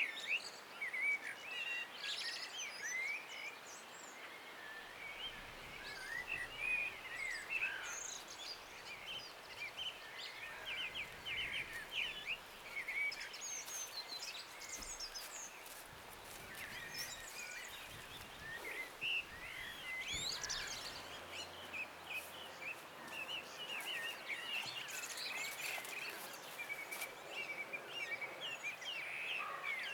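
Chorus of several songbirds singing at once: overlapping quick chirps and trills without a break, over a soft steady hiss.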